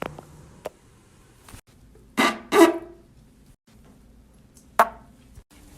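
Two short, buzzy farts about half a second apart, a little over two seconds in, each falling in pitch, followed by a brief sharp pop near the end.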